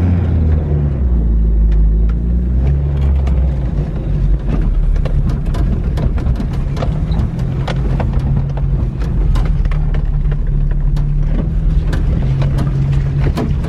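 Suzuki Sierra 4x4's engine running as it drives over rough ground, with many short clicks, knocks and rattles from the body jolting, more frequent after the first few seconds.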